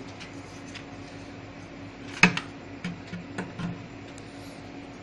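A Yamaha subwoofer's 6.5-inch driver being worked out of its enclosure: one sharp knock a little over two seconds in, then a few lighter knocks, over a steady low hum.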